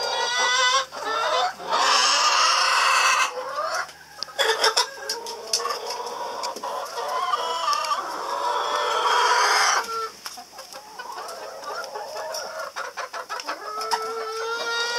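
Domestic hens clucking and squawking, with two long loud stretches of squawking, one about two seconds in and one around eight seconds in.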